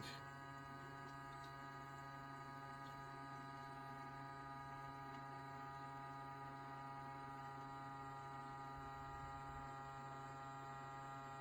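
Small electric fuel transfer pump running steadily, pumping gasoline from a can into a generator's tank: a faint, even hum with a stack of steady tones.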